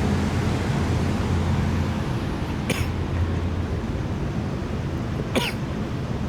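Steady rushing of storm wind and rain during a thunderstorm, with a low hum underneath that fades out about halfway. Two short, sharp squeak-like sounds stand out, one a little under halfway and one near the end.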